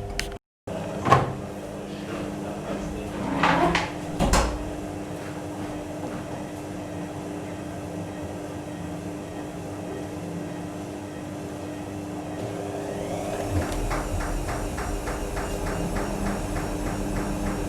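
AEG Öko Lavamat washing machine running with a steady hum, broken by a sharp click and a few knocks early on. About thirteen seconds in, its motor rises in pitch and the machine runs louder with an even, regular ticking.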